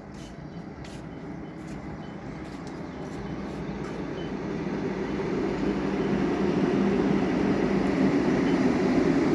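Train approaching: a steady rumble and hum that grows steadily louder, with a few faint clicks in the first seconds.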